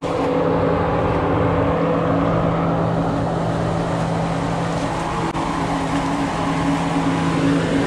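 A motor running steadily nearby: a loud, even hum held at one constant pitch.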